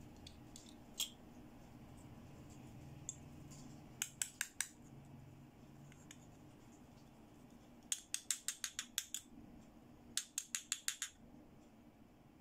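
Small hard-plastic toy perfume bottles tapped together in quick runs of sharp clicks: a single click, then four, then two longer runs of about seven to ten clicks.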